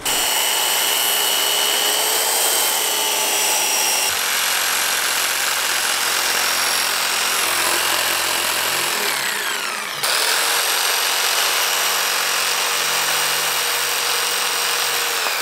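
A DeWalt circular saw and then a jigsaw cutting a thick walnut slab, with a steady motor whine throughout. The sound changes abruptly about four seconds in and again about ten seconds in, and the pitch falls just before the second change.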